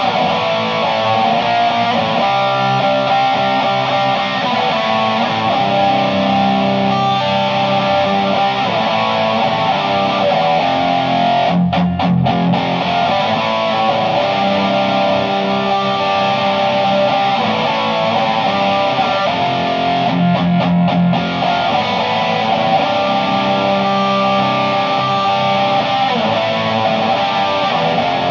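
Electric guitar played through a Naughty Amps Li'l Bitch valve head with crunch set to 7, into an Orange 4x12 cabinet: continuous distorted crunch chords and riffs. The playing stops briefly about twelve seconds in and again about twenty-one seconds in.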